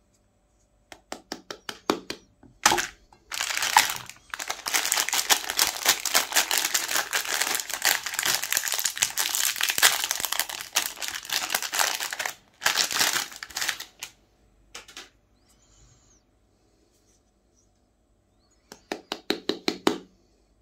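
Plastic-foil Magnum ice cream wrapper torn open and crinkled by hands, with a long spell of continuous crinkling in the middle. There are quick runs of sharp ticks near the start and again near the end.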